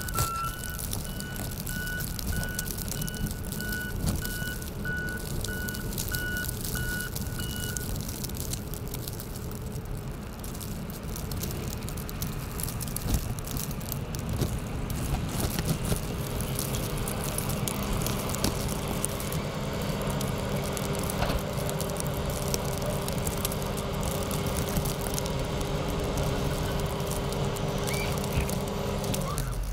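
CASE wheel loader's diesel engine running as it pushes snow, with its backup alarm beeping about twice a second for the first eight seconds or so. From about halfway on, the engine holds a steady, higher hum under load.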